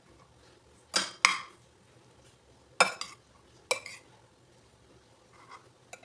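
A metal spoon clinking against a glass mixing bowl: about five sharp clinks between about one and four seconds in.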